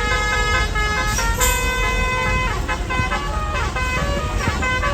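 Tour bus's basuri horn, a multi-tone musical air horn, playing a melody of held notes that step up and down in pitch, over a low rumble.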